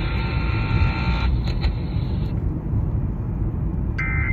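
Steady low rumble with a thin electronic buzz that cuts off about a second in. Near the end the first short burst of warbling Emergency Alert System data tones begins: the end-of-message code that closes the alert.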